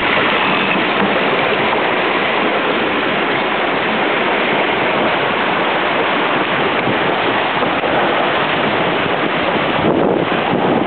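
Water rushing and splashing along the hull of a carbon Mini 6.50 prototype sailboat under way. Wind buffets the microphone unevenly near the end.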